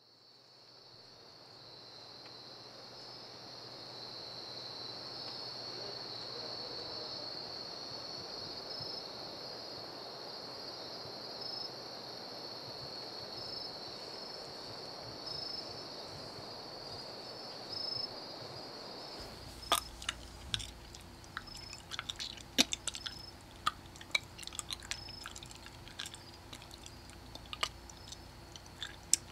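Night ambience sound effect fading in, with a steady high trill throughout. About two-thirds of the way through, wet squelching and clicking sounds from a lovemaking sound effect start over it.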